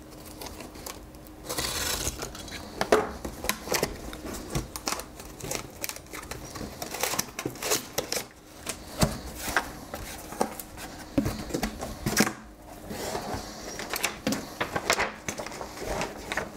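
Cardboard box being opened by hand: tape peeled off the flaps, flaps pulled open and a paper sheet rustling, making a busy run of small clicks, scrapes and crinkles.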